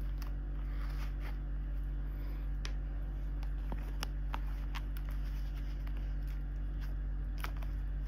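Hands handling a small quilted leather Chanel flap card holder: soft rustling with scattered small clicks and taps as items are pushed inside and the flap is pressed down, over a steady low hum.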